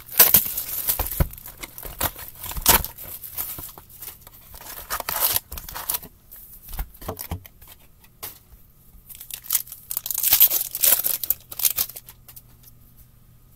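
Foil wrappers of SP Authentic hockey card packs being torn open and crinkled, in irregular bursts that are loudest at the start, about three seconds in, and again about ten seconds in.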